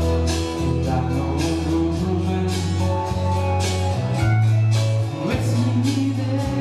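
Instrumental music from a Yamaha PSR-S970 arranger keyboard: held bass notes and melody over a steady beat.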